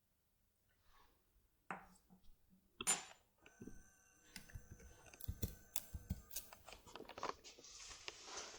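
Faint clicks and light taps from small hand tools being handled: two single clicks, then a quicker run of small clicks in the second half.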